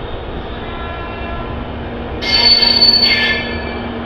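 LHB passenger coaches of an Indian Railways express rolling along the platform with a steady rumble. About two seconds in, a loud high-pitched metallic squeal rises from the undercarriage and lasts about a second.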